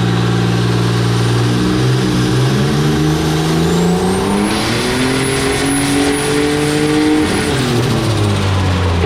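Turbocharged Ecotec V6 running on a chassis dyno. It holds steady at first, then the revs climb for several seconds while a high whistle rises in over them, and about seven seconds in the revs drop back. The owner says the clutch spun on the run.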